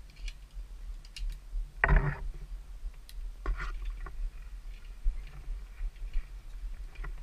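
Metal clinks and rattles of zipline hardware, the carabiners and trolley pulley on the rider's lanyards knocking together, with a louder clatter about two seconds in and another shortly after, over a steady low rumble.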